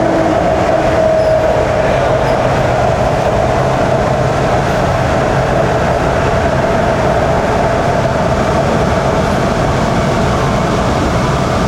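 Shenzhen Metro Line 14 train running steadily at speed: an even rumble of wheels on track with a constant motor whine.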